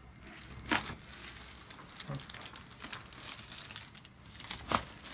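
Paper sheet on a chiropractic table crinkling as the head is handled, with two sharp cracks about four seconds apart, one near the start and one near the end: joint cavitations from cervical (neck) adjustments.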